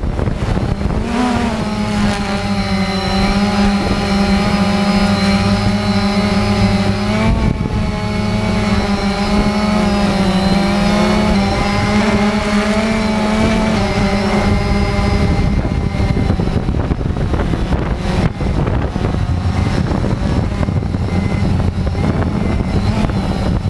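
Cheerson CX-20 quadcopter's electric motors and propellers running with a steady pitched buzz. The pitch wavers and shifts as the throttle changes, and the low tone weakens about two-thirds of the way through.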